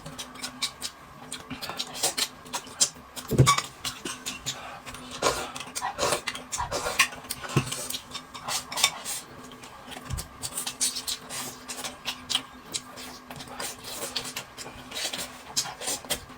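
Eating at a table: utensils clinking and scraping against dishes, with chewing and slurping, as many irregular short clicks and clinks.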